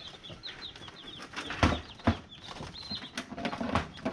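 Newly hatched chicks peeping in short, high cheeps, with a couple of sharp knocks about halfway through as the incubator's clear plastic dome lid is handled and set back on its base.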